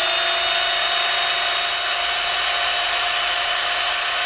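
Electric pole chainsaw running with its chain spinning free, not cutting: a loud, steady motor whine at constant pitch. It is powered through an inverter from a 12-volt deep-cycle battery.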